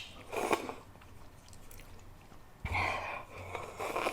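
Close-up eating mouth noises: a couple of short wet sounds near the start, then a louder muffled chewing sound a little past halfway.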